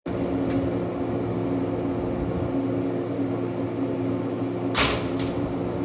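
Shinano Railway 115 series electric train standing at the platform, its onboard equipment giving a steady hum with several constant low tones. Near the end come two short hisses in quick succession.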